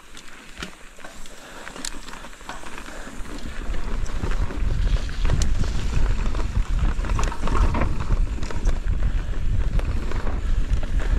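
Mountain bike riding fast down a dry dirt trail: wind rumbling over the microphone and knobby tyres rolling on dirt, with scattered clicks and rattles from the bike and loose stones. The rumble grows louder over the first few seconds as speed builds, then holds steady.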